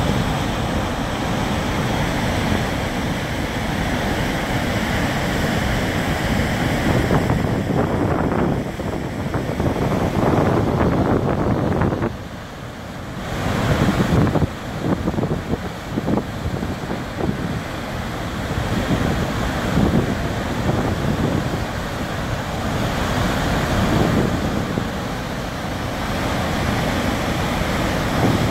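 Flood water pouring over a concrete dam spillway and churning below it, a loud steady rushing that dips briefly about twelve seconds in. Wind buffets the microphone.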